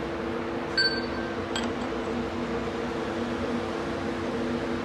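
Steady machine hum, like a fan running, with a light metallic clink that rings briefly about a second in and a smaller click soon after, as of a tool or metal part being set down or knocked.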